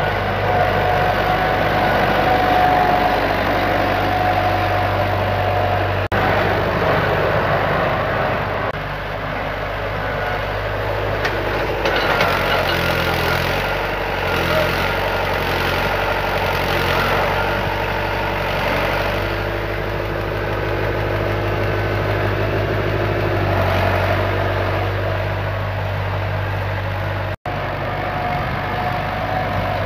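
Vintage David Brown tractor engine running while the tractor works soil with its front loader bucket; the engine note shifts as it works, with a higher whine that comes and goes.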